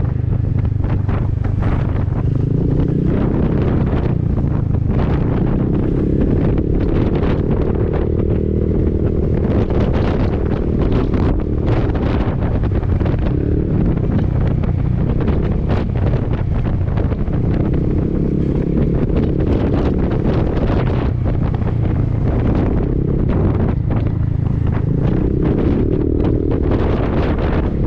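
Wind buffeting the microphone on a moving Honda Forza 300 scooter, with its single-cylinder engine and Arrow aftermarket exhaust droning underneath, the engine note shifting up and down with the throttle.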